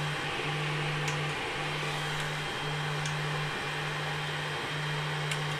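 Creality 3D printer at work on its first layer: a steady fan hiss, with a low stepper-motor hum that runs in stretches of about a second with short breaks between them as the print head traces the base outline.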